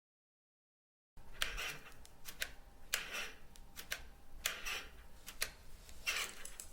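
Rusty metal playground equipment creaking in slow swells about every second and a half, with sharp metallic clinks in between. It starts about a second in, after silence.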